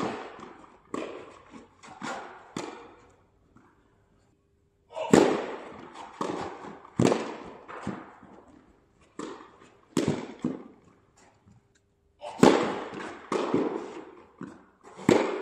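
Tennis rally: sharp pops of a tennis ball struck by rackets and bouncing on the court, roughly one every second, each with a short echo, in runs broken by two brief pauses.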